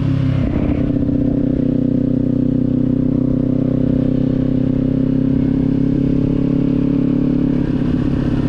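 Kawasaki Z400 parallel-twin motorcycle engine running at steady cruising revs while riding, with wind noise. The engine note shifts about half a second in and again near the end.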